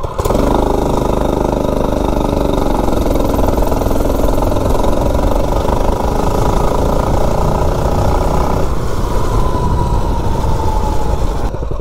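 A mini bike's governor-deleted Predator 212-block single-cylinder engine at full throttle, accelerating hard from a standstill through its centrifugal clutch and chain on a 0 to 30 mph run, the engine note climbing. About nine seconds in the sound changes and a whine slowly falls in pitch, then it drops away near the end.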